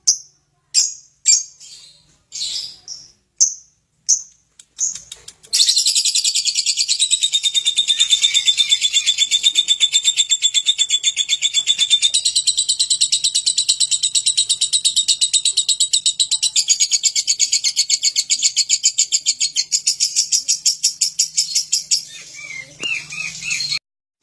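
Lovebird ngekek: a few separate shrill chirps, then about five seconds in a single unbroken run of rapid, high chattering notes that goes on for nearly twenty seconds and stops just before the end.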